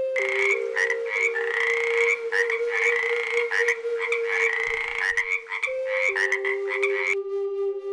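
Frogs calling in a chorus of quick, repeated croaks that stops abruptly about seven seconds in.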